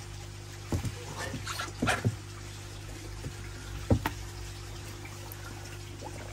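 Water splashing in a few short bursts, about a second in, around two seconds and once near four seconds, as a koi is handled and put back into the pond water. A steady low hum runs underneath.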